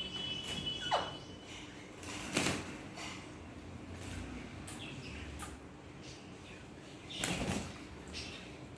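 Baby parrot bathing: two bursts of wing-flapping in the water, about two and a half and seven seconds in, with a short falling call about a second in.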